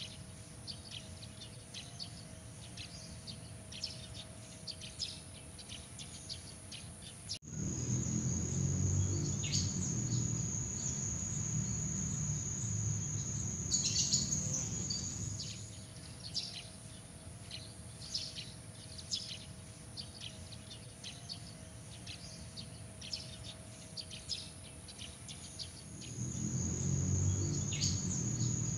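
Night outdoor ambience: insects trilling steadily at a high pitch while birds give many short chirps. A low rumble swells in about a quarter of the way through, fades after about half the time, and returns near the end.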